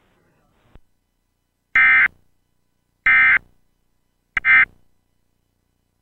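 Emergency Alert System end-of-message signal: three short bursts of the SAME digital data tone, about a second and a quarter apart, marking the end of the alert.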